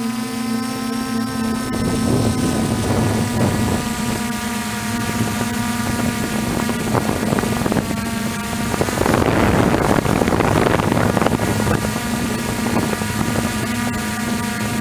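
DJI Flame Wheel 450 quadcopter's brushless motors and propellers humming steadily, recorded from its onboard camera, the pitch shifting a little as the throttle changes. A rush of wind noise swells about nine to eleven seconds in.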